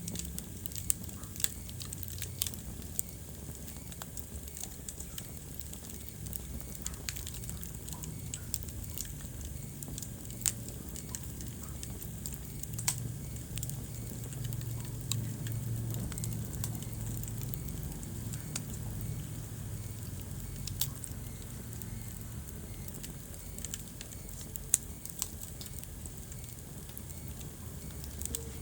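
Wood fire burning in a fireplace: a steady low rumble of flames with irregular sharp crackles and pops from the burning logs.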